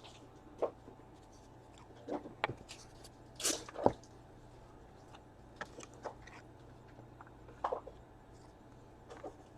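Trading cards and their plastic holders being handled and laid out on a table: scattered light taps, clicks and rustles, the loudest a sharp tap about four seconds in, over a low steady hum.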